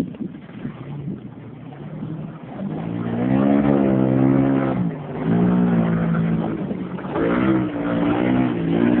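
Ford Ranger pickup's engine revving as the truck drives through a muddy water hole. The engine comes up in three surges from a couple of seconds in, its pitch rising and falling with each.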